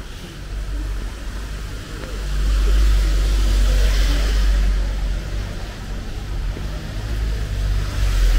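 Street traffic: a vehicle passing, its tyre and engine noise swelling about two seconds in and fading after about five seconds, over a steady low rumble.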